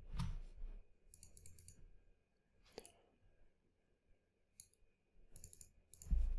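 Computer mouse clicking: a few short runs of quick clicks and one sharper single click. A louder low, muffled sound comes near the end.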